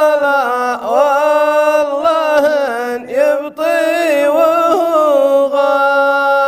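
A man chanting a Gulf Arabic shaila solo, drawing each syllable out in long, winding melismatic phrases with short breaths between them, then settling on a long held steady note near the end.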